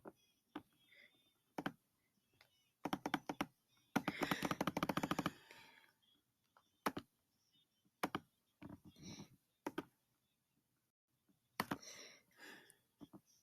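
Typing on a computer keyboard: scattered single key presses and clicks, with a quick run of keystrokes about four seconds in and another short burst near the end.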